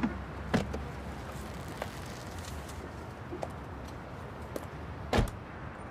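Car door being opened and shut: a latch click about half a second in, then the door closes with a solid thud about five seconds in, over a low steady rumble.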